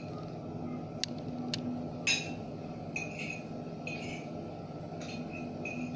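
Eating utensil clinking and scraping against a plate: about half a dozen sharp clinks, the loudest about two seconds in, with brief scrapes, over a steady low hum.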